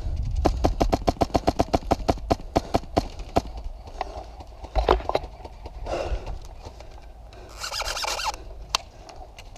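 Airsoft fire: a rapid string of sharp clicks, about eight a second, for roughly three seconds, then a few scattered single clicks. Short rushing noises come near the end.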